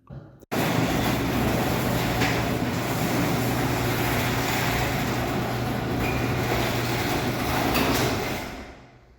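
Sectional garage door travelling on its electric opener: a steady motor hum under the rumble of the door and rollers running along the tracks. It starts abruptly about half a second in and dies away near the end.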